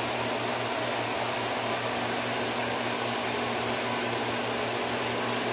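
Kitchen range-hood exhaust fan running steadily: an even rush of air with a low motor hum beneath it.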